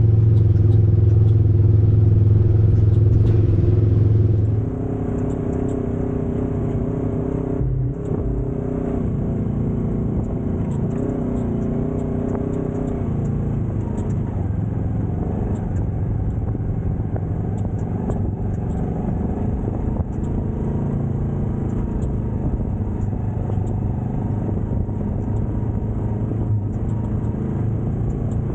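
Off-road side-by-side's engine running steadily under way, a continuous drone with a strong low hum. About four and a half seconds in the sound drops a little in level and changes character, then carries on evenly.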